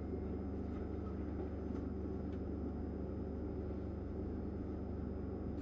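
Steady room noise in a pause between sentences: a low, even hum with faint hiss, and two faint ticks about two seconds in.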